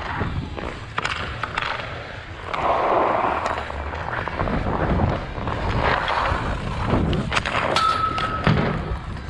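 Hockey skate blades scraping and carving on outdoor rink ice, with a longer, louder scrape about three seconds in, and sharp clacks of a hockey stick on a puck.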